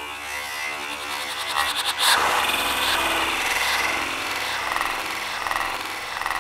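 Sound-effect opening of a film's title sequence: a dense rumbling, hissing swell that builds, with a sharp hit about two seconds in.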